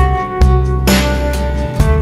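Background music: sustained instrument notes over a strong bass line, with a drum hit about once a second.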